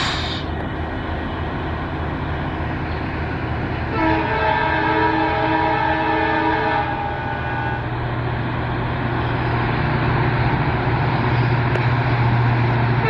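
Indian Railways EMD diesel freight locomotive approaching with its engine running in a steady low drone that grows louder in the second half. About four seconds in it sounds its multi-tone air horn for roughly three seconds.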